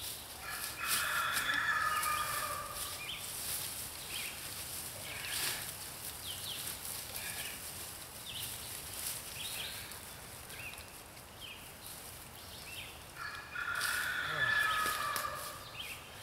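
A large fowl calls twice, each call about two seconds long: once near the start and again about 13 seconds in. Between the calls there is a steady rattle and rustle of chicken wire mesh being handled and stretched.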